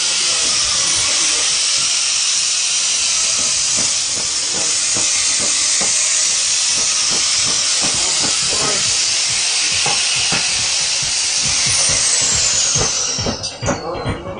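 Woodworking workshop noise: a steady, loud hiss with scattered knocks and taps. Near the end a high whine falls in pitch and the hiss cuts off.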